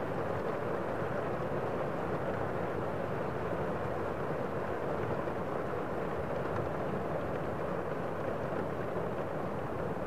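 Steady rain falling on foliage: a dense, even, muffled hiss with no single drops standing out.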